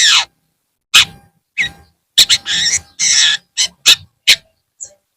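Long-tailed shrike (cendet) singing: a run of short, harsh, scratchy calls and chirps with brief pauses between them, opening with a falling whistle and thinning out to a few single notes near the end.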